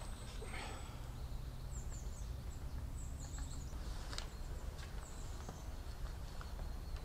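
Forest ambience with a small bird calling in a run of short, high, falling chirps from about two to four seconds in, over a low rumble, and a sharp knock about four seconds in.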